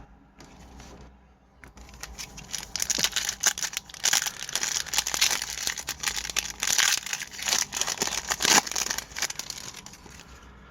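Crinkling and tearing of a hockey card pack's wrapper as it is torn open, a dense, irregular crackle that builds about two seconds in and is busiest through the middle.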